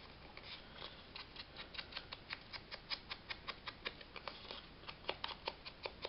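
Faint, quick, irregular light tapping, about four or five taps a second: a small inking tool dabbed along the edges of a paper piece to ink them.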